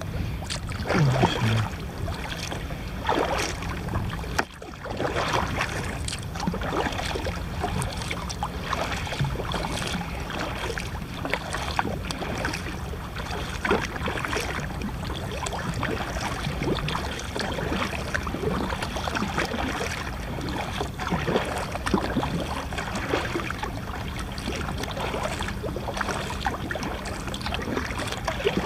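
Sea water lapping and splashing against a kayak's hull: a steady wash of water with many small, irregular splashes.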